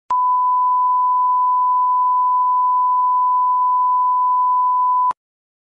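1 kHz reference test tone played with SMPTE colour bars: one steady, unwavering beep lasting about five seconds, switched on and off with a click.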